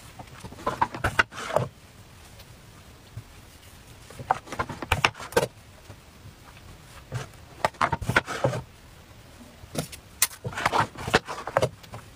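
Handling noises from cooking thin crepe wrappers on a small electric crepe pan: four short bursts of clicking, light clattering and rustling, about three seconds apart, as the pan is picked up and set down and the wrappers are handled.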